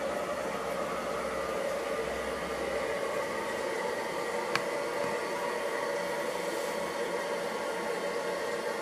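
Toilet cistern refilling after a flush: a steady hiss of water running into the tank, with a low rumble that fades out about three seconds in. A single sharp click comes about halfway through.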